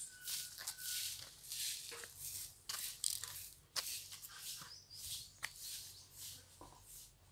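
Caged birds moving about: repeated soft rustling and scratching, two or three a second, with scattered sharp clicks and a thin steady whistle in the first second.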